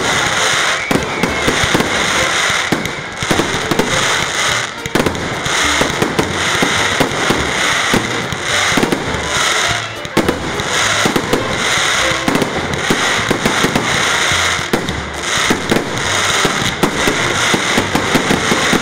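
Fireworks display: a dense, continuous run of crackling and popping bangs, with music underneath.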